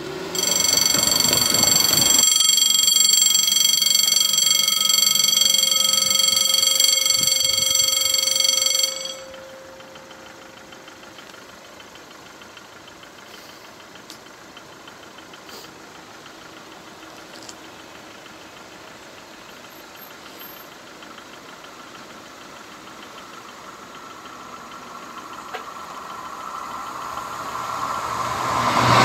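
Electronic level-crossing warning bell ringing steadily for about nine seconds, then cutting off abruptly. After a quiet stretch, the rising rush of an approaching double-deck TGV grows louder near the end.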